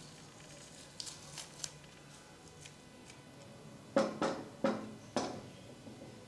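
A steel hammer with a heavy chain-link handle being set down on a wooden workbench: four knocks of steel on wood with the chain links clinking, all within about a second, after a few light clicks of handling.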